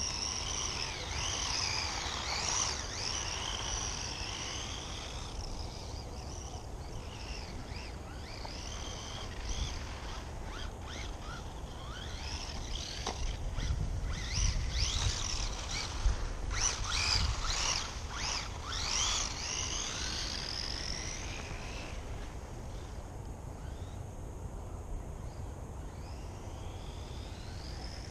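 WLtoys A959-B 1:18 electric RC car being driven: its motor whine rises and falls repeatedly as it speeds up and slows, over a steady low rumble. A cluster of short knocks comes about halfway through.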